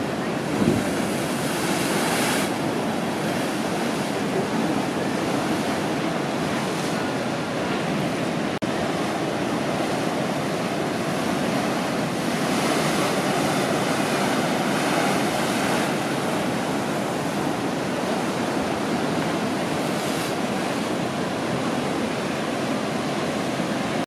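Ocean surf breaking and washing in a steady roar of white water, swelling louder around two seconds in and again from about twelve to sixteen seconds. A short gust of wind hits the microphone about a second in, and the sound drops out for an instant near the middle.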